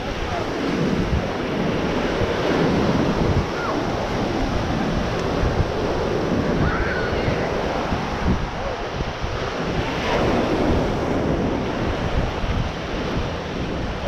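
Ocean surf washing steadily onto a sandy beach, with wind buffeting the microphone.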